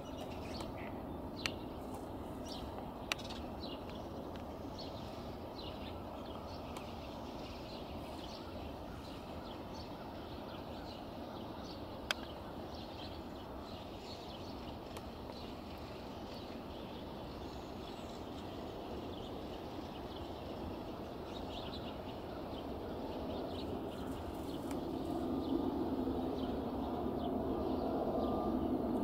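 Small birds chirping over a steady distant rumble. In the last few seconds the jet noise of a Boeing 777F climbing out after takeoff builds up and grows louder, with a steady whine in it.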